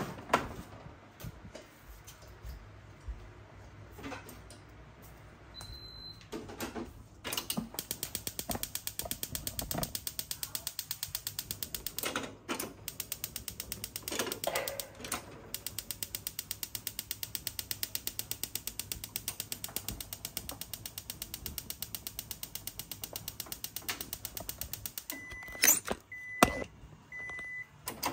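Japanese gas stove being lit: its battery-powered spark igniter clicks fast and evenly for many seconds, with a couple of short breaks. Near the end come a few loud knocks and three short electronic beeps from the stove.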